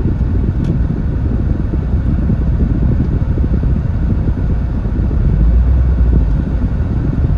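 MG TF driving slowly, heard from inside the cabin: a steady low engine and road rumble that swells a little about five to six seconds in.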